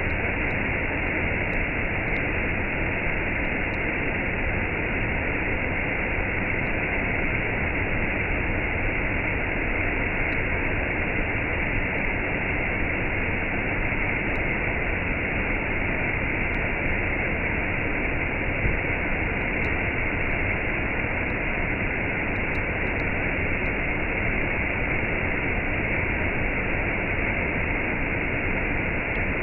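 Waterfall with a cascade: a steady, unbroken rush of falling water.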